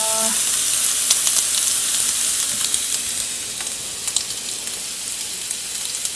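Thin breakfast sausage patties frying in their own fat in a preheated electric skillet, with no oil: a steady sizzling hiss with scattered small pops and crackles.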